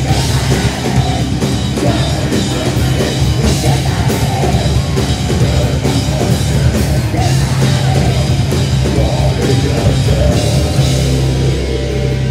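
Live grindcore band playing loud, with distorted guitar, bass, fast drumming and vocals.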